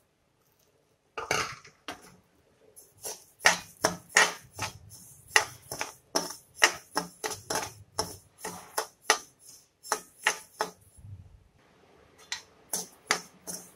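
A steel spoon scraping and clinking against a metal kadai as broken wheat is stirred while roasting in ghee, two or three strokes a second, with a short pause near the end. About a second in, a short rush of the dry grains being poured into the pan.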